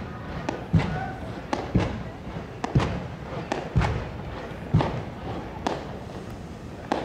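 Aerial fireworks going off: sharp booms from shells bursting overhead, about ten over seven seconds, some coming in close pairs.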